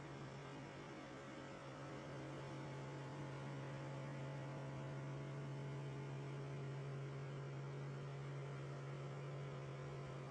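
Two-spindle CNC wood-turning lathe running steadily: a low hum over a faint hiss.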